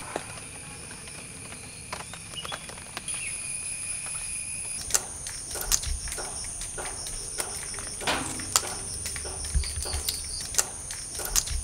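Pumpkin stems and vines snapping and tearing as they are broken and stripped by hand, a series of sharp crisp snaps from about five seconds in. Behind them, a steady high insect chorus with a fast pulsing trill.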